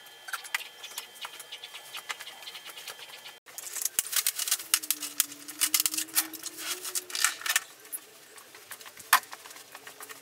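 Small metal parts and hand tools clinking and rattling as they are handled on a metal-topped workbench, a quick irregular run of clicks busiest in the middle. A low wavering tone runs underneath for a few seconds after about four seconds in.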